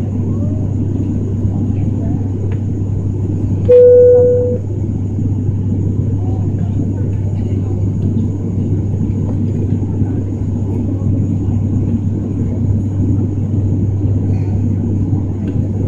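Steady drone of a turboprop airliner's engines and propellers heard from inside the cabin in flight, with a strong low hum. About four seconds in, a single loud chime rings for just under a second.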